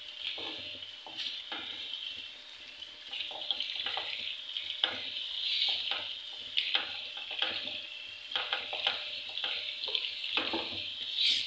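Spoon stirring macaroni pasta into a creamy white sauce in a pan, with irregular scrapes and knocks against the pan, over a steady sizzle of frying.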